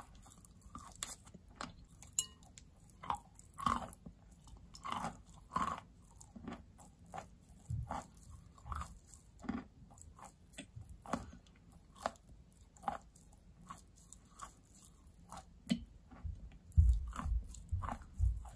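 Close-miked chewing and biting of soaked white chalk: irregular moist crunches, about one or two a second. Near the end come a few louder low thumps.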